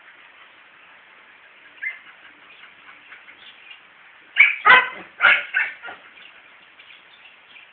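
A dog barking: one faint short bark about two seconds in, then a quick burst of four or five louder barks about four and a half seconds in.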